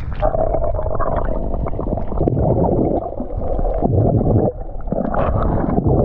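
Sea water heard through an action camera held underwater: a steady, muffled rumble and gurgle with no high sounds, dipping briefly a few times.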